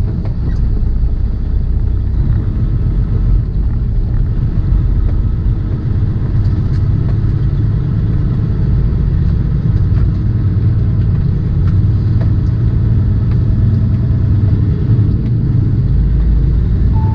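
Semi truck's diesel engine running steadily, a loud, even, low-pitched engine noise with no clear changes.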